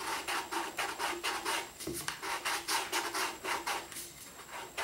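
Sandpaper rubbing around the cut edge of a plastic model rocket nose cone, quick rhythmic hand strokes about four a second, smoothing the cut base. The strokes ease off for a moment near the end.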